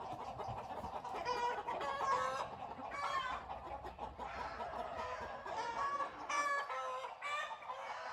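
Chickens clucking and squawking over and over in an agitated chorus, with an owl loose in their coop.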